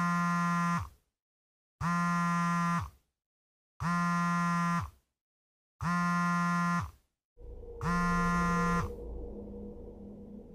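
A harsh buzzing tone sounds five times, about a second each and two seconds apart, each one sagging in pitch as it cuts off. Before the last buzz a low ambient drone with a steady hum comes in and carries on after it.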